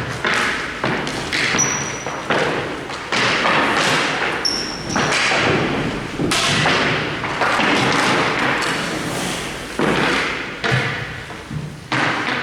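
Hockey play: a run of repeated thuds and knocks from sticks and the ball or puck hitting the boards and floor, with two brief high squeaks in the first five seconds.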